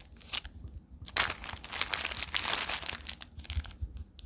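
Thin plastic wrappers crinkling in irregular clusters as individually packaged mini squishy toys are handled.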